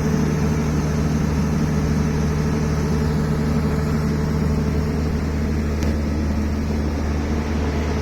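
Diesel engine of a tractor or rice harvester running steadily at constant speed, a low even drone.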